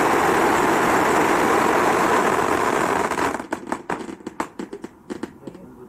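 A 13-inch cone silver crackling fountain firework burning with a loud, steady rushing hiss. About three seconds in, it sputters out into scattered sharp crackles and pops as the fountain burns down.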